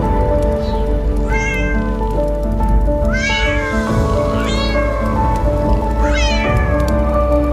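Kitten meowing four times in high-pitched calls, over background music.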